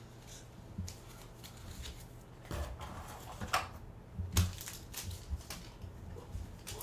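Pokémon trading cards and foil booster-pack wrappers being handled on a table: a handful of scattered taps and rustles.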